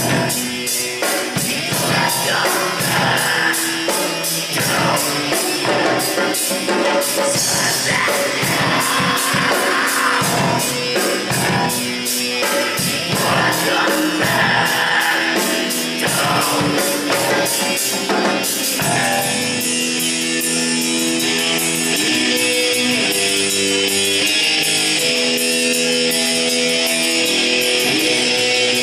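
A rock band playing live, poorly recorded: guitar, drum kit with fast cymbal strokes, and singing. About two-thirds of the way through the voice drops out and held guitar notes carry on over the drums.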